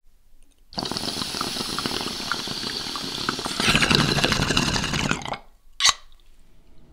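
Glitch-style intro sound effect: a burst of crackling static that starts under a second in, grows louder about three seconds in and cuts off, followed by one short sharp swish.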